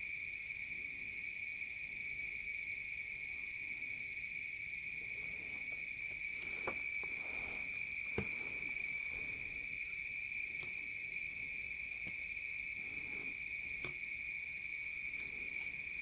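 A steady, unbroken high-pitched insect trill, with a few light taps and knocks in the middle.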